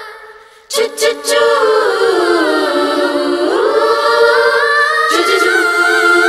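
Film-song intro: three sharp hits about a second in, then a wordless choir holding a chord that slides down and back up. A new cluster of hits and a fresh held chord come in about five seconds in.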